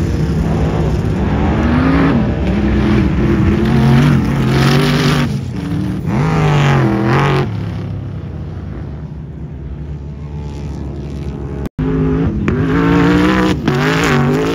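Sand rail engines revving hard, the pitch rising and falling again and again as the cars accelerate and slide across the sand. The sound breaks off for an instant about twelve seconds in, then another car is heard revving.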